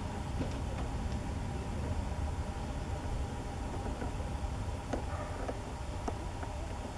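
Steady low background rumble of distant traffic, with a few faint clicks.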